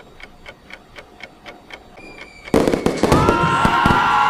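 Edited-in sound effects: a clock ticking about four times a second, then about two and a half seconds in a sudden loud crackle of fireworks, with whistles that fall in pitch.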